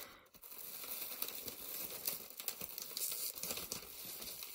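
Crumpled packing paper and a plastic bag rustling and crinkling as a hand rummages through them in a cardboard box, in small irregular crackles.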